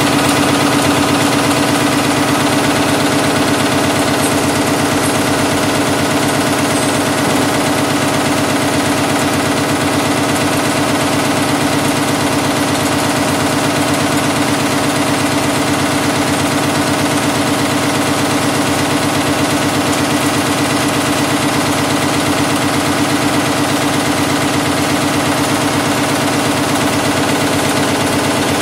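ANP 25/70 automatic nail-making machine running steadily, drawing wire from the coil and heading and cutting nails in a fast, even clatter of rapid repeated strokes.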